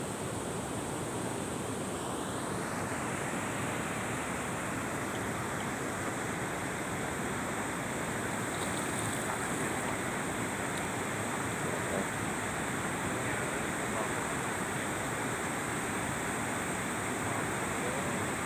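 Steady rushing of flowing river water, an even, unbroken noise.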